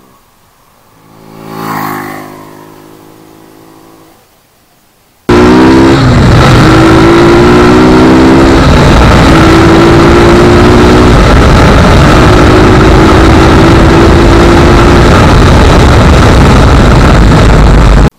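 A Bajaj Pulsar NS200's single-cylinder engine, fitted with a K&N air filter, approaching and passing by, loudest about two seconds in, then fading. About five seconds in, the sound jumps to a very loud wind rush heard from on the moving bike, with the engine note rising in several stretches as the rider accelerates through the gears, then cuts off suddenly near the end.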